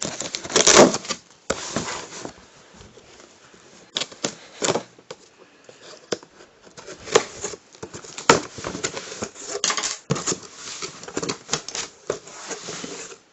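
A butter knife cutting and scraping through packing tape on a cardboard box, with irregular clicks, scrapes and rustles of cardboard and packaging as the box is opened.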